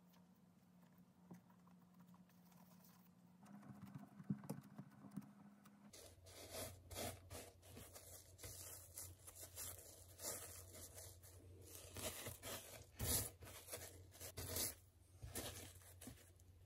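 Soft hand sounds while shaping dough, then, from about six seconds in, a ball of dough being rolled in dry bread crumbs: faint, irregular crunchy scraping and rustling over a low steady hum.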